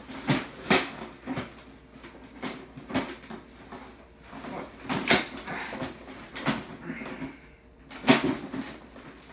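Irregular knocks and clunks from handling the collapsible stand of a lifesize animatronic Halloween prop while trying to extend it. The loudest come about five and eight seconds in.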